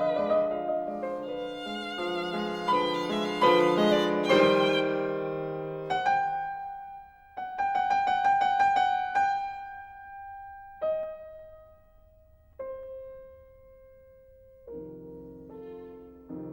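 Instrumental background music led by a violin melody with vibrato, over a soft accompaniment; about halfway through it settles into long held notes that step downward before the melody resumes near the end.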